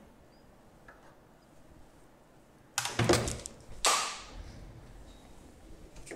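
Objects being handled on a workbench: a short rattling clatter about three seconds in, then a sharp scrape a second later that trails off.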